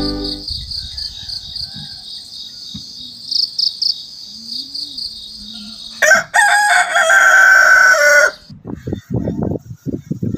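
A rooster crows once, loud and drawn out, about six seconds in, over an insect's steady high, rapidly pulsing chirp. Irregular low thumps and rustles follow near the end.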